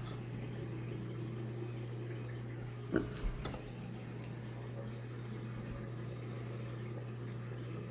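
Steady low hum of aquarium pump equipment running, with a faint watery wash. About three seconds in there is a single knock, followed by two lighter clicks.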